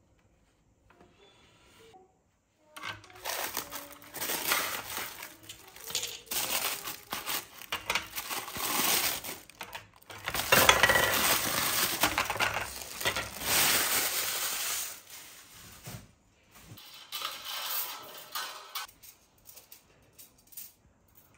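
Tissue paper and cardboard packing rustling and crinkling as a boxed black metal wire lamp shade is unpacked by hand, with light clinks of the metal parts. It starts after about three seconds of near silence and is loudest in the middle.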